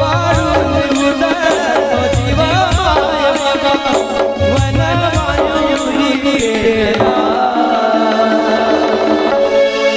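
Instrumental interlude of a Marathi devotional song: hand drums beat under a melody for about seven seconds, then drop out, leaving steady held notes.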